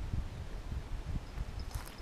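Footsteps on dry gum-leaf litter and dirt, with an irregular low rumble on the microphone.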